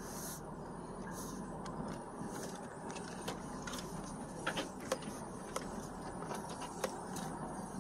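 Car driving slowly over a rough sandy trail, heard from inside the cabin: a steady engine and tyre rumble, with several sharp clicks and knocks in the second half.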